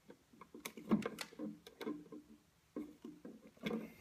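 Scattered light clicks and taps of hand tools on electrical wire ends as they are stripped and curled.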